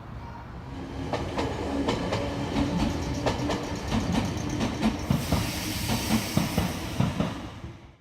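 Meitetsu electric train passing, its wheels clicking over rail joints in a quickening run of clacks over a low rumble. A steady low tone runs through the middle, and a hiss joins about five seconds in.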